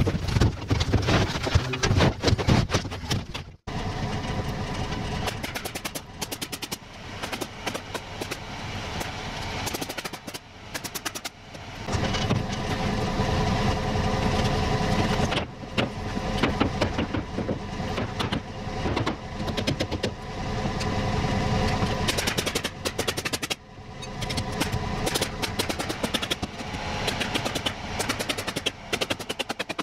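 Pneumatic coil nailer firing runs of quick shots into OSB roof sheathing over a steadily running engine. The sound breaks off abruptly three times.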